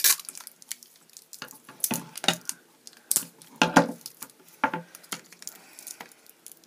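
Clear sticky tape being pulled off its roll in short rips and wrapped around a binder clip, heard as a series of irregular sharp crackles with hand handling noise.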